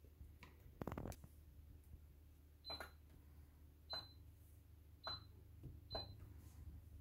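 Touch controls of an AEG induction hob beeping four times, short high beeps about a second apart, as a finger taps the cooking zone's power level up. A faint knock comes about a second in.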